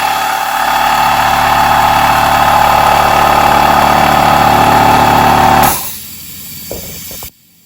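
Metabo HPT cordless air compressor's motor and pump running loudly and steadily while filling the tank, then shutting off near the end, followed by a softer hiss for about a second and a half. The owner says the shut-off comes as the tank gets full, when the on/off switch pops out by itself and the tank starts losing air.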